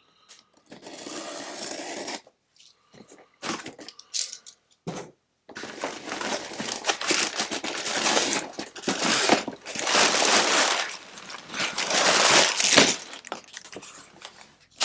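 A LEGO set's cardboard box being opened and unpacked. A short rasp about a second in and a few light knocks are followed by a long stretch of plastic parts bags crinkling and rustling as they are handled and pulled out.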